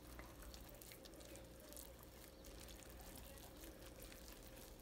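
Near silence: faint soft squishing and small clicks of a hand working flour and yeast water into pizza dough in a glass bowl, over a faint steady hum.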